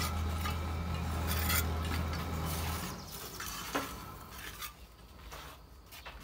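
Bricklaying: a steel trowel scraping mortar and tapping bricks into place, then a sharp clink of bricks knocking together as they are picked from a pile. A steady low hum runs underneath and stops about three seconds in.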